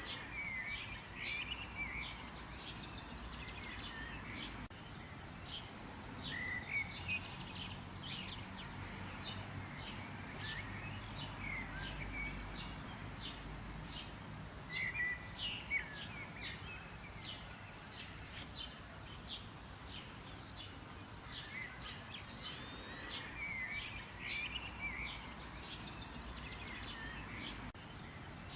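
Several small birds chirping and singing in quick, short notes and little swooping calls, over a faint steady background hiss.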